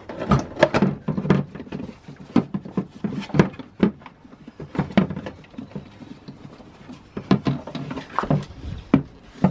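Plastic airbox housing knocking, scraping and clattering in irregular knocks as it is worked loose and lifted out of the engine bay.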